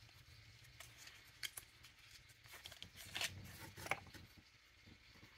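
Faint handling of a small cardboard cosmetics box and a mascara tube: a few short scrapes and light clicks as the tube comes out of its box.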